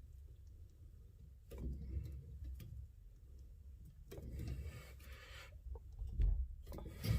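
Pipe grips scraping and rubbing on a brass air-line fitting as it is tightened, in irregular spells, with two knocks near the end.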